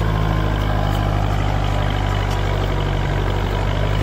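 Kubota four-wheel-drive tractor's diesel engine running steadily under load as it pulls a tine cultivator and disc harrow together in first high gear.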